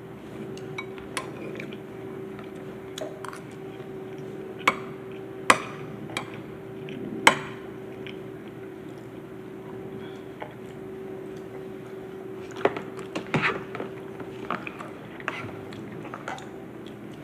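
A spoon scraping and clinking against a bowl while eating, with a few sharp clinks about five and seven seconds in and a cluster near thirteen seconds, over a steady hum.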